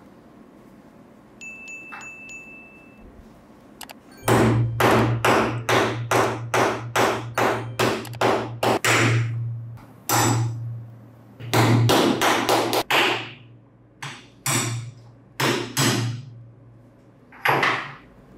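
Hammer striking a steel pin punch to drive the pivot rivet out of a pair of rusty pincers, each blow giving a ringing metallic clang. It starts about four seconds in with a quick run of about a dozen blows, a little over two a second, then slows to single, spaced blows.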